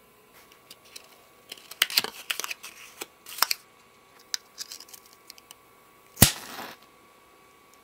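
A cardboard matchbook being handled, with bursts of crinkling, crackling clicks. About six seconds in comes the loudest sound: a sharp snap followed by a brief hiss, typical of a match being struck and flaring.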